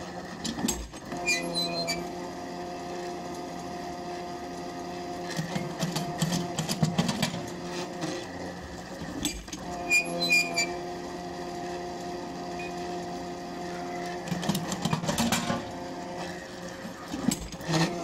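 Small tripod drop-hammer pile driver at work: its winch motor hums steadily as it hoists the hammer, breaking off briefly three times, with several clusters of metal clanks and knocks as the hammer is dropped and handled.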